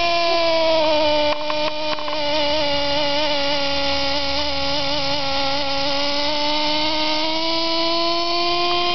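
Small .07 two-stroke glow engine of a Lite Machines model 110 RC helicopter running with its rotor turning, a steady high buzz. Its pitch sags a little through the middle and climbs back near the end, with a few light clicks about a second and a half in.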